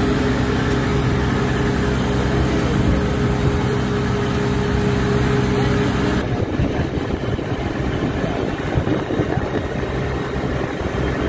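A fishing boat's engine running with a steady hum. About six seconds in, the sound changes to a rougher rush of churning wake water behind the stern, with the engine still running underneath.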